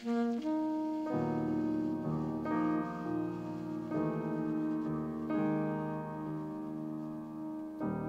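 Jazz ballad played live on alto saxophone and grand piano: the saxophone holds long notes while the piano strikes a new chord about every second and a half.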